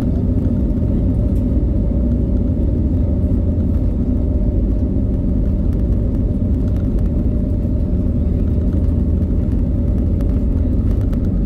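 Steady low rumble inside the cabin of an Airbus A320neo, heard from a seat over the wing as the airliner rolls along the ground on its engines. The level stays even, with no rising spool-up.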